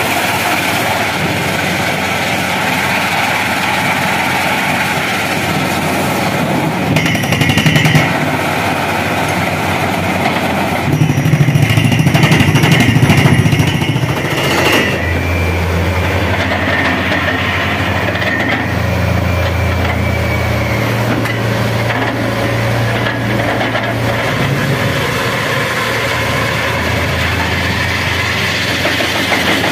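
Truck-mounted borewell drilling rig running, its engine and drilling machinery making a loud, continuous mechanical noise. It grows louder for a few seconds around the middle, then settles with a steady low hum underneath.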